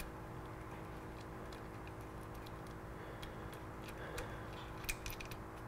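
Faint, scattered clicks of a ratchet and 8mm socket working the engine cover bolts loose, with a quick run of sharper clicks near the end.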